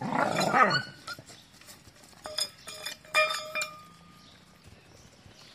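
A dog gives a loud cry lasting under a second at the start. Then a metal bowl is knocked, clinking and ringing several times about two to three and a half seconds in.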